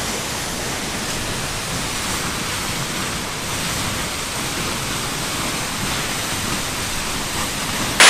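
A tall free-falling waterfall's steady rush of water, an even hiss that does not change.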